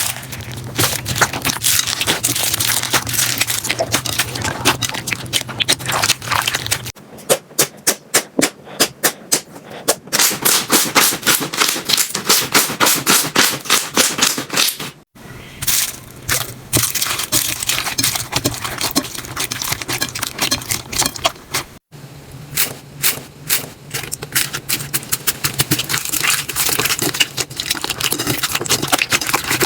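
Slime being squeezed, poked and stretched by hand, giving dense crackling clicks and snaps, in several short clips with abrupt cuts between them.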